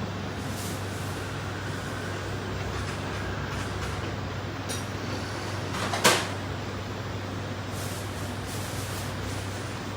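Steady background din with a constant low hum, and one sharp clack about six seconds in that is the loudest sound.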